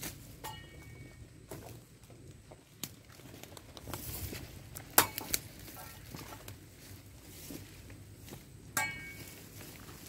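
Machete chopping cassava stems: scattered sharp cracks and knocks, the loudest about five seconds in, with rustling in the grass between strokes.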